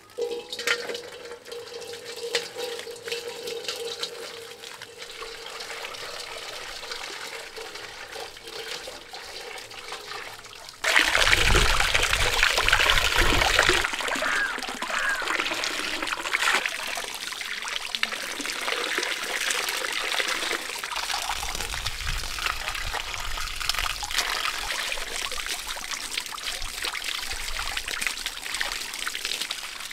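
Water running from a hose and splashing over a large hanging fish as it is rinsed and rubbed by hand, falling into a metal bowl and onto the ground. The splashing gets suddenly louder about a third of the way in and stays steady after that.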